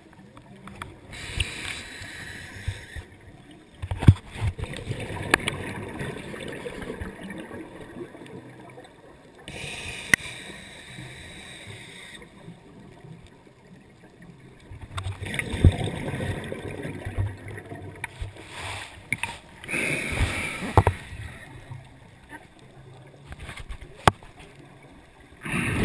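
Scuba regulator breathing, heard through a GoPro dive housing: a hissing inhale, then a long gurgling rush of exhaled bubbles, about three slow breaths, with scattered sharp clicks.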